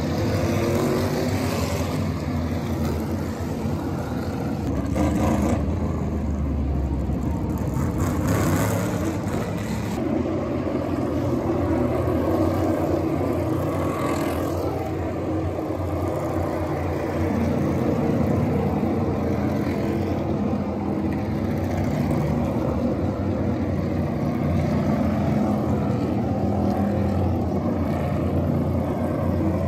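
NASCAR Cup Series stock cars' V8 engines running steadily as a pack of cars passes on the banked track, then as cars drive down pit road.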